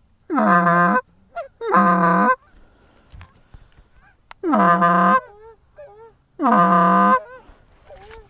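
Goose honking: four long, loud honks about a second or two apart, with fainter short honks in between.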